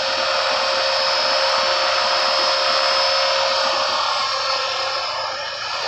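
Scale Hughes 300C RC helicopter on a 500-size kit in flight: the steady whine of its motor and rotors, with a steady high tone. It dips a little near the end, then comes back up.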